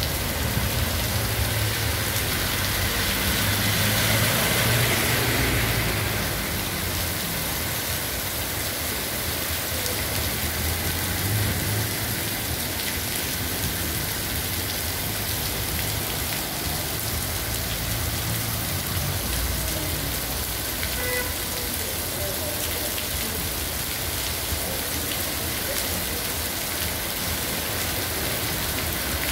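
Heavy rain pouring onto a paved street and pavement, a steady dense hiss of falling water, with a louder swell of noise about four to six seconds in.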